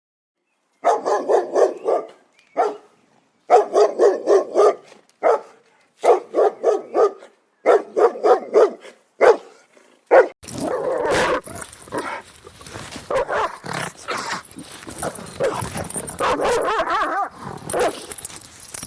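Dog barking in quick runs of short barks, five or six bursts with brief gaps between them. About ten seconds in this gives way to a continuous, rougher stretch of dog growling.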